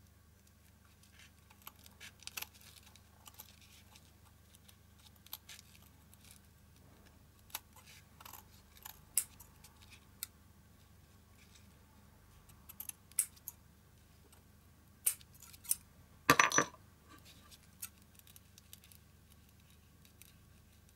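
Fabric scissors snipping through thick ribbon, a scattered run of short crisp snips and clicks with a louder, slightly longer cut about sixteen seconds in.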